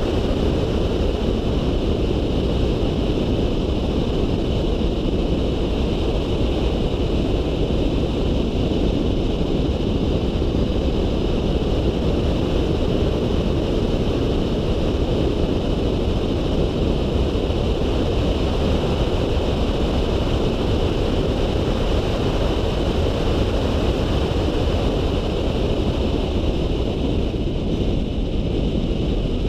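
Volkswagen Polo 9N3 driving at speed, picked up by a camera mounted outside the car: a steady rush of wind on the microphone over a low road rumble, with a constant high hum on top.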